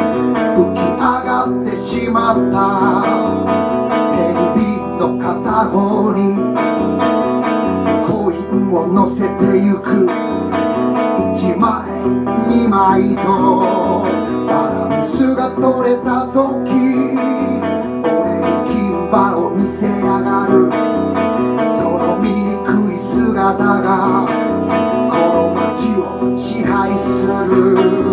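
Live solo performance: a man singing while strumming a hollow-body electric guitar.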